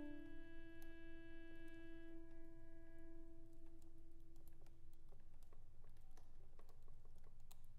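Chromatic button accordion holding one low note rich in overtones, which thins and fades away over about five seconds, the upper overtones dropping out first. As it dies, a scatter of small sharp clicks from the instrument takes over, over a low steady hum.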